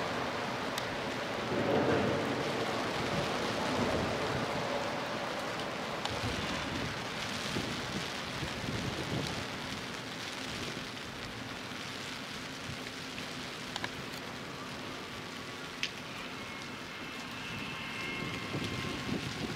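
Steady rain falling, with a few sharp drop ticks and a faint high tone near the end.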